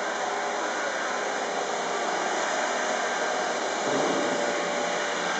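Small battery-powered electric motor spinning the fan of a homemade model hovercraft, running steadily with the rush of blown air. It gets a little louder about four seconds in.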